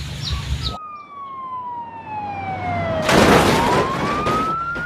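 Ambulance siren wailing in one slow sweep. It starts suddenly under a second in, falls steadily for about two seconds and then climbs again. A burst of rushing noise covers it midway.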